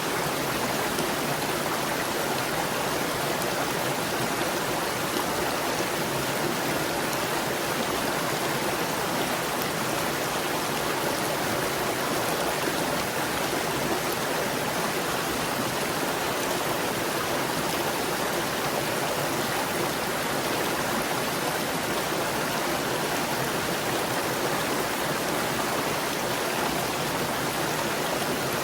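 A stream gurgling as it flows, with a steady, unbroken rush of water.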